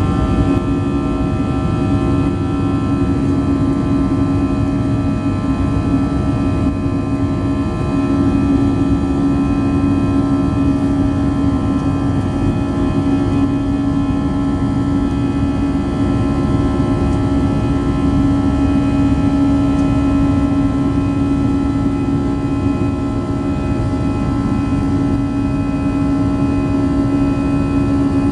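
Airbus A320-214 in the climb, heard inside the cabin by the wing: its CFM56-5B turbofan engines drone steadily, a strong low hum and several higher whining tones over rushing air.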